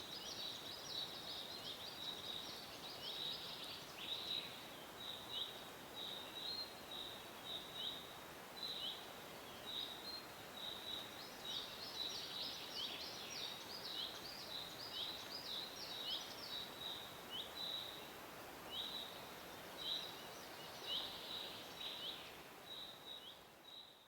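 Birds chirping: a steady run of short, high, falling chirps, roughly two a second, over a soft even hiss, fading out at the very end.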